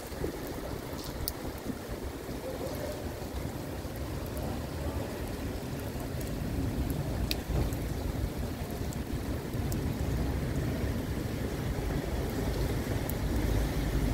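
Wind buffeting the microphone over the steady hiss of heavy rain, a low noise that grows louder toward the end, with a few faint clicks.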